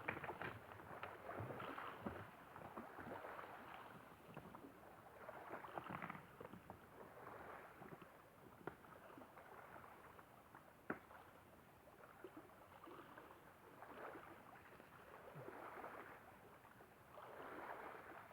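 Faint lake water lapping and washing along a rocky shore in uneven swells, with a few sharp clicks.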